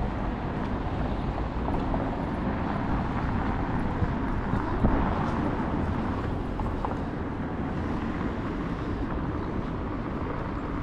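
Steady outdoor city street noise with a low rumble and no clear tones, broken by two short sharp knocks about four and five seconds in.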